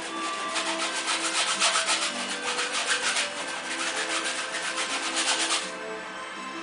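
Quick, repeated scraping strokes of a painting tool spreading thick white paste across a stretched canvas, stopping near the end. Soft background music plays underneath.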